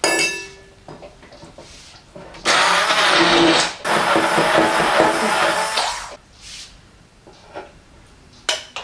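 Hand-held immersion blender running in a glass bowl, puréeing oat porridge with cottage cheese and meat purée into a mash. It runs in two bursts, about a second and a half and then about two seconds, with a short break between, and is the loudest sound here.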